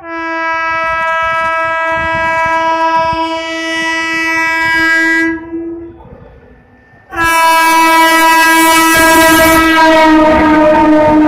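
An Indian Railways WAG-7 electric freight locomotive sounds its horn in two long, steady blasts: the first lasts about five seconds, and the second starts about seven seconds in. During the second blast the locomotive and its wagons pass close by, with a rising rush of wheel noise.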